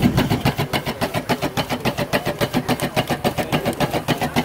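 Merryweather No.1 "Valiant" steam fire pump running, its small steam engine beating out rapid, even exhaust chuffs, roughly seven a second.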